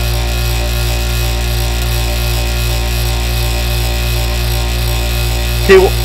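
Small bench grinder running with a steady hum while a steel twist drill bit is held against its coarse wheel and ground, relieving the back of the tip.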